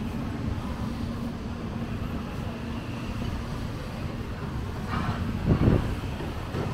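Steady low rumble of busy market background noise with a faint hum, and a brief louder sound about five and a half seconds in.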